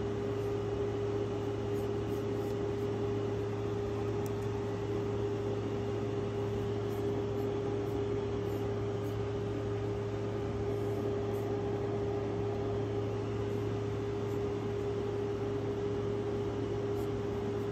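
Steady machine hum: a constant mid-pitched tone with a lower drone beneath, over an even rushing noise.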